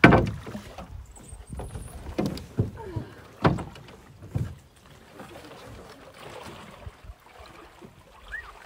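Hollow knocks and thumps on a canoe hull as a paddler climbs out of the canoe into a shallow rocky stream, with water sloshing around her legs. The loudest knock comes right at the start, and several more follow over the next few seconds.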